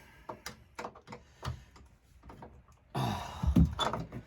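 Scattered plastic and metal clicks and knocks as an HVAC filter cover is being worked at, then a louder scraping clatter about three seconds in.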